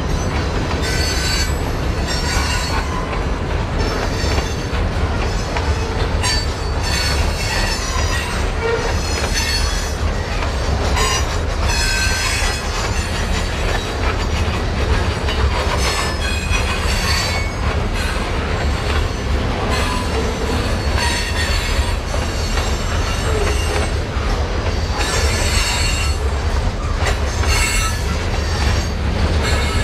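Cascade and Columbia River Railroad freight train rolling by with a steady heavy low rumble, its wheels squealing high on the rails off and on.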